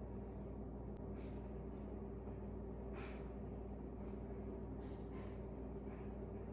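Donuts frying in a pan of oil on low heat: a few short pops and crackles spaced a second or two apart over a steady low hum.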